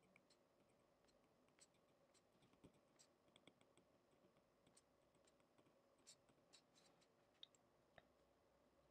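Near silence, with faint scattered taps and scratches of a stylus writing on a tablet screen.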